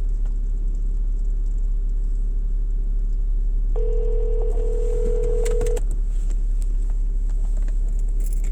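Telephone ringback tone heard over a phone's speaker: one steady two-second ring about four seconds in, with quiet gaps either side, the US ring-then-pause pattern of a call ringing through to another line. A steady low hum runs underneath.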